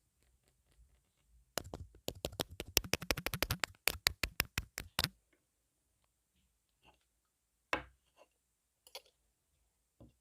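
Fingers tapping an earphone microphone close up: a fast run of sharp clicks, about ten a second, starts about a second and a half in and lasts about three and a half seconds, followed by a few scattered single taps.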